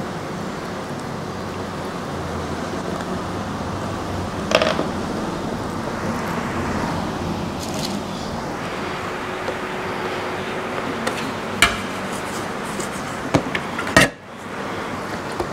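Steady background hiss and rumble with a few sharp knocks and clicks of metal baking trays and a bench scraper handled on the table as croissants are rolled; the loudest knock comes near the end.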